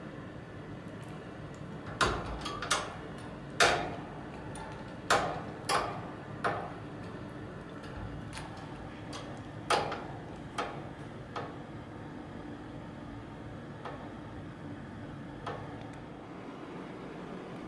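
The metal latch of a wire pet cage's door clacking and rattling against the bars as a cat paws and bites at it: a run of about ten sharp, irregular clacks over the first ten seconds or so, then a few fainter ones.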